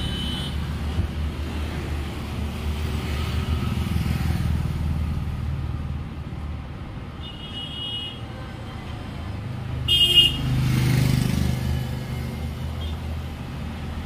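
Road traffic running steadily, with short vehicle horn toots: a faint one at the start, one about seven and a half seconds in, and the loudest about ten seconds in, followed by a vehicle passing close.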